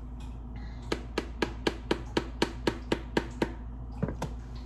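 A run of about a dozen quick, even taps, about four a second, followed by two more near the end.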